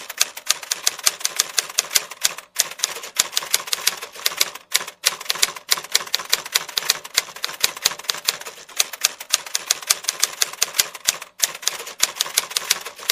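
Typewriter sound effect: a quick, uneven run of key-strike clicks, several a second, with a few brief pauses.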